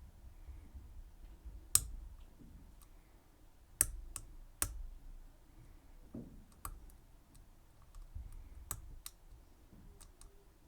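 Irregular sharp metallic clicks of a lock pick and tension wrench working the pins of a Schlage Everest 29SL lock cylinder as it is being picked. A few louder clicks stand out among fainter ones, spaced unevenly.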